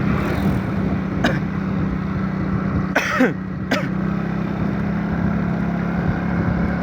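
Steady drone of a vehicle engine and road noise while riding along, with a few short throat-clearing or cough-like vocal sounds, the loudest about three seconds in.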